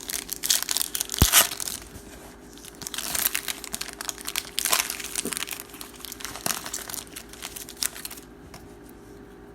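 Plastic wrap being torn and crumpled as a trading-card box and its packs are opened, in irregular bursts of crinkling.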